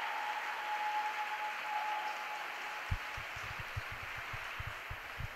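Audience applauding, an even patter of clapping throughout. A faint thin held tone fades out in the first half, and a few soft low knocks come in the second half.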